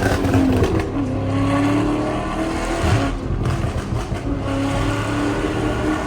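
Dodge Charger Scat Pack's 6.4-litre (392) Hemi V8 pulling hard under acceleration, its pitch climbing, dropping at an upshift about halfway through, then climbing again.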